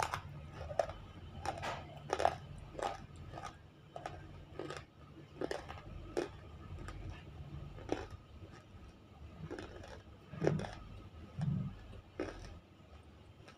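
Close-up crunching and chewing of half-roasted, unshaped nakumatt (baked edible clay) in the mouth: irregular crisp crunches, several a second at first and sparser later, with two louder bites near the end.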